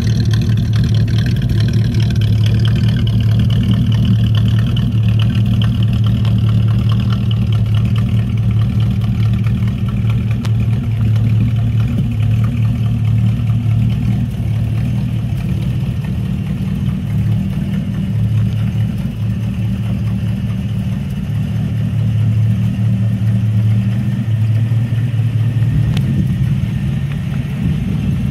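1969 Plymouth Barracuda's 318 cubic-inch small-block V8 idling steadily through its exhaust.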